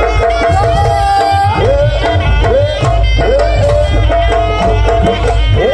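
Javanese jaranan folk-dance music: hand drums beating steadily under a swooping, sliding melody line.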